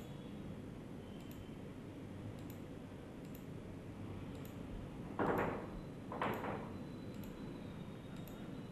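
Quiet room hiss and hum with faint computer-mouse clicks, and two short, soft noisy sounds about five and six seconds in.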